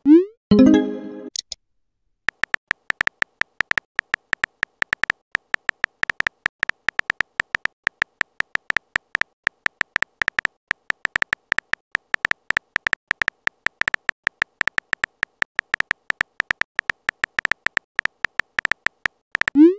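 Typing sound effect of a phone texting app: short sharp keyboard clicks, several a second, each with a high tick. About the start a message-sent sound plays, a quick rising swoosh with a chime, and another rising swoosh begins right at the end.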